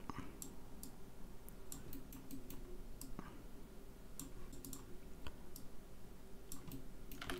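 Faint, irregular clicking of a computer mouse and keyboard, over a low steady hum.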